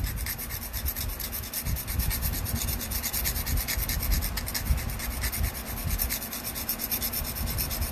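Steel flex-blade knife rubbed back and forth on 220-grit sandpaper glued to a wooden board, in quick short strokes: the broken tip is being ground back into shape.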